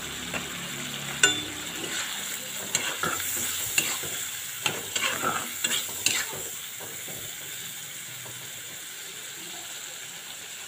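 Fish belly and potato pieces sizzling in hot oil in a kadai, while a metal spatula stirs them, scraping and clinking against the pan. The clinks come over the first six seconds or so, then the sizzle goes on alone.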